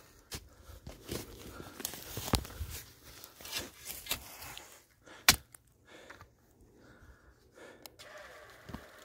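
Scattered rustling and small clicks of someone walking through dry grass and fallen leaves, with one loud sharp click a little past halfway.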